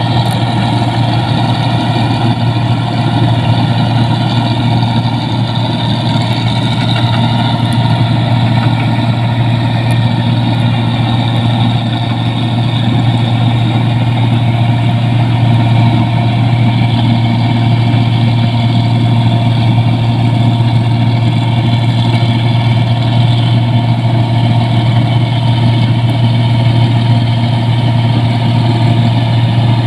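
Rice combine harvester running steadily: a constant machine drone with a strong low hum.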